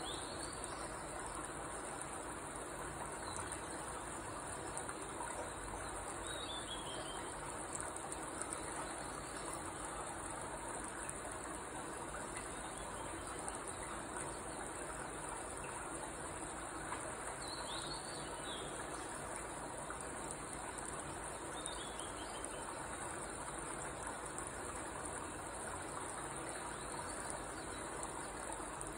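Steady high-pitched insect chorus, like crickets trilling, over an even hiss, with a few faint short descending chirps now and then.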